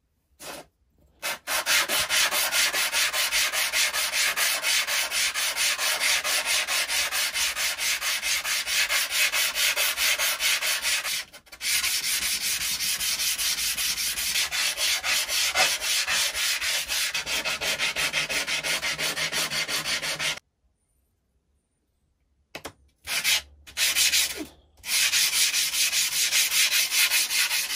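A metal part of a Stanley bullnose plane rubbed back and forth on a sheet of abrasive paper in fast, even strokes, a rasping scrape: lapping the part flat. The strokes stop briefly about a third of the way in, break off for about two seconds near the end, then resume in short spurts before running steadily again.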